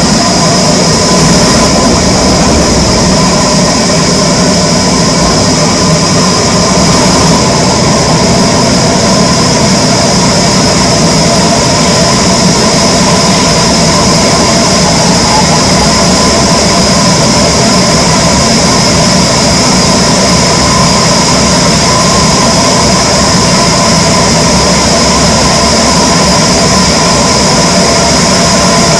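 Wood-cutting saw machinery running steadily at full speed, a constant loud mechanical drone with a steady high whine that does not change.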